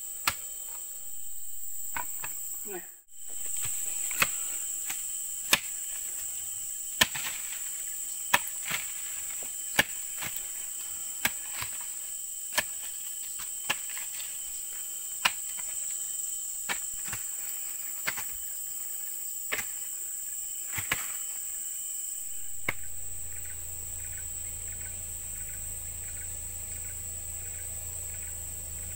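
A digging tool striking and scraping the mud in steady strokes, about one every second and a half, over a steady high chirring of crickets. About 22 seconds in the strokes stop and a low steady hum takes over.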